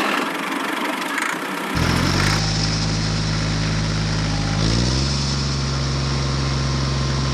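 Even hiss for about two seconds, then an engine starts sounding abruptly and runs steadily with a low hum, its pitch shifting slightly about five seconds in.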